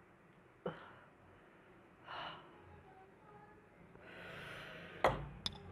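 Samyang spicy noodles slurped into the mouth for about a second near the end, followed by two sharp clicks.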